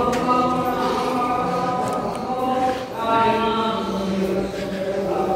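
Voices chanting in long held notes, with a short break about three seconds in.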